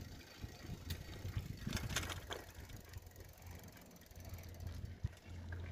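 Low, steady rumble of riding a bike along a paved road, with a few light clicks about one to two seconds in.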